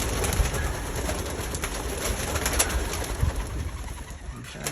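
Pigeons cooing in the loft, with a low rumble and scattered small clicks underneath.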